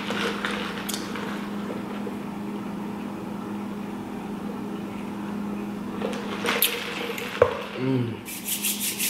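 Close-miked eating and drinking sounds, sipping from a fountain-drink cup and chewing, over a steady low hum. A sharp click comes about seven and a half seconds in, and a quick run of clicks follows near the end.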